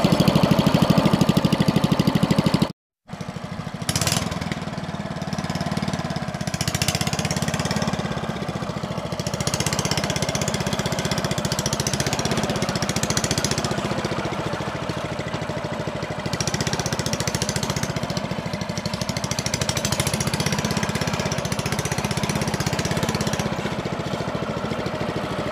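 Small single-cylinder engine of a homemade mini tractor running with a fast, even chugging. The sound drops out completely for a moment about three seconds in, then the engine runs on steadily as the tractor drives.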